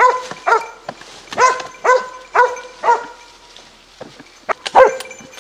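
Hunting dog barking steadily at a wounded wild boar it has brought to bay, about two barks a second. The barks pause briefly past the middle, then a few sharper, louder barks come near the end.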